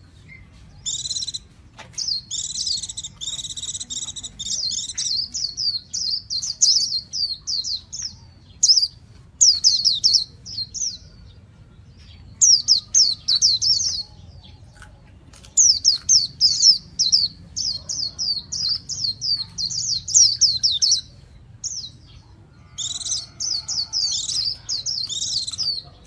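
Caged white-eye singing a rapid twittering song of high, quickly sweeping notes. It comes in phrases of several seconds, broken by short pauses.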